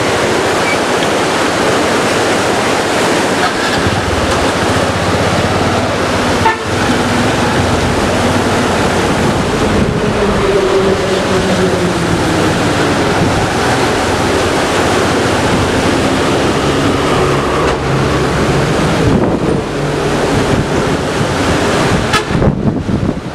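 Loud, steady rush of wind on the microphone from a moving vehicle on a road, with the engine tones of traffic underneath that waver in pitch around the middle.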